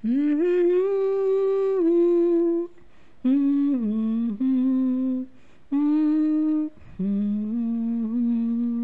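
A woman humming a slow, wordless melody without accompaniment, holding long notes in four short phrases separated by brief breaths.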